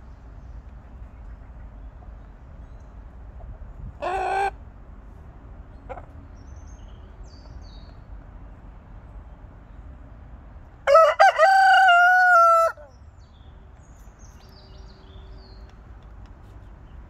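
A rooster crows once, a loud cock-a-doodle-doo lasting nearly two seconds, about eleven seconds in. Earlier comes a single short call from one of the chickens.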